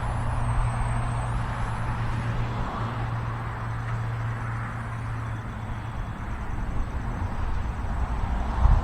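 Strong wind rumbling and buffeting on the microphone. Over it is the faint high whine of a small electric RC plane's motor and propeller, dipping and rising in pitch with the throttle.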